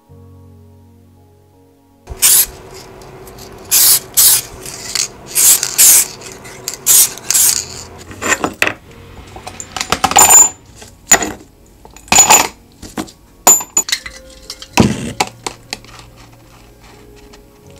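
Small steel bicycle parts, loose bearing balls among them, dropped into a plastic cup: a dozen or so sharp clinks and rattles, starting about two seconds in.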